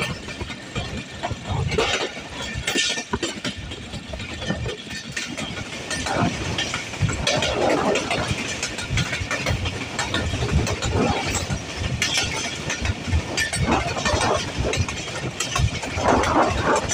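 Passenger train running on the rails: a continuous rumble and rattle with many irregular knocks.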